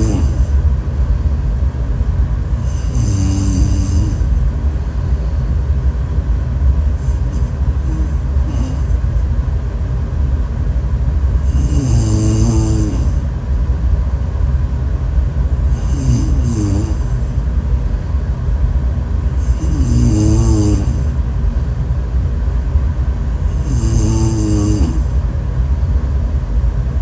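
A person snoring in a regular rhythm, one snore about every four seconds, over a steady low rumble.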